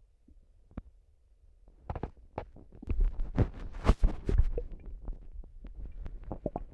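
Stomach gurgling: irregular bubbly pops and squelches of a rumbling gut. It starts after a quiet second or two and is loudest about three to four seconds in.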